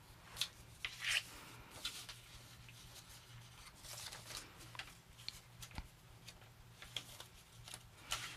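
Faint, irregular rustling and small clicks, like handling noise, over a low steady hum.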